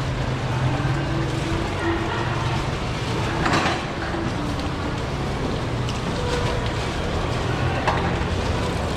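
Steady low hum and rumble of background noise, with a short rushing sound about three and a half seconds in and a smaller one near the end.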